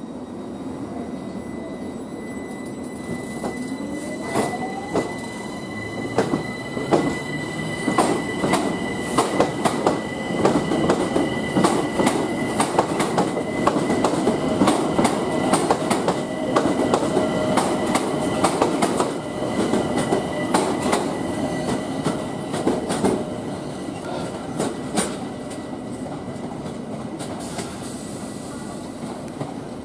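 London Overground Class 378 Electrostar electric train pulling out and gathering speed. Its traction motors whine, rising in pitch over the first few seconds, and its wheels click rapidly over rail joints and points. A steady high wheel squeal sounds throughout.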